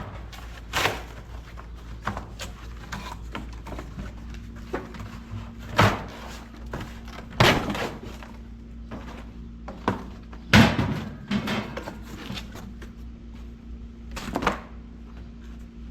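Scattered knocks and clunks, five louder ones a couple of seconds apart, from handling a 200-amp outdoor electrical panel as it is positioned and marked for mounting. A faint steady hum runs under them from about four seconds in.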